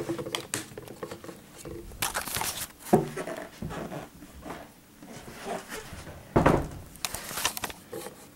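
Handling noise: scattered rustles, clicks and knocks as a handheld camera is moved about and a plastic bottle of isopropyl alcohol is picked up from a side table. There is a louder knock about six and a half seconds in.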